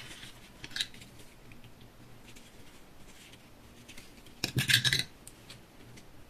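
Quiet handling noise from foam crafting: faint taps and rustles, then a short clatter of clicks and knocks about four and a half seconds in as a plastic glue bottle is handled and set back in its pot.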